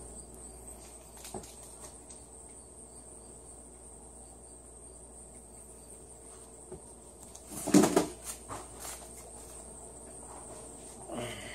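Quiet indoor room tone with a faint, steady high-pitched whine and faint regular chirps. About eight seconds in there is one short, loud noise.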